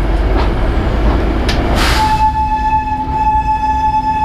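Kalka–Shimla narrow-gauge train running with a steady rumble and rail noise. About halfway through, a locomotive horn starts and holds one steady note.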